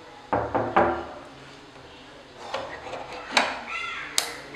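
Knuckles knocking three times in quick succession on a wooden door. Near the end come a few sharp clicks and a high squeak as the door is unlatched and swung open.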